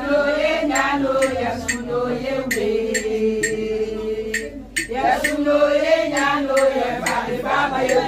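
A group of voices, mostly women's, chanting a slow traditional song in long held notes, breaking off briefly about halfway and starting again. A sharp beat is struck about twice a second throughout.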